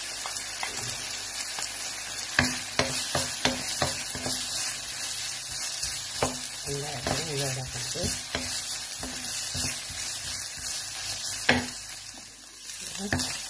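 Minced beef and sliced red onion sizzling in a non-stick pan, stirred with a wooden spatula that knocks and scrapes against the pan every second or so. The sizzle dips briefly near the end.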